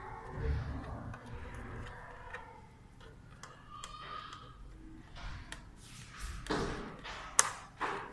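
Handling noise from a Dell monitor being tilted and a VGA cable plugged into its back: scattered plastic clicks, taps and light knocks, with one sharp click near the end.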